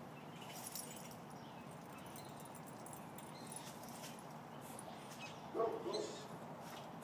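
A Peruvian Inca Orchid dog gives two short, high yips in quick succession about five and a half seconds in, the loudest sound here over faint rustling ticks.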